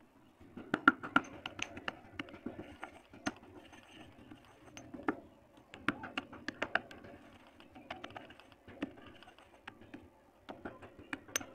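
Green stone pestle pounding and grinding chunks of dried multani mitti (fuller's earth clay) in a stone mortar. Irregular sharp knocks and cracks sound over a gritty scraping crunch as the clay breaks down to powder.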